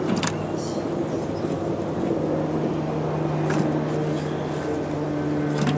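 An engine running steadily, a low even hum that grows a little stronger about two seconds in, with a few light clicks.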